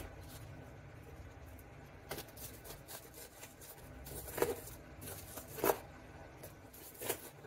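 A kitchen knife cutting onion on a wooden cutting board: a few separate, quiet knocks of the blade reaching the board, spaced a second or more apart.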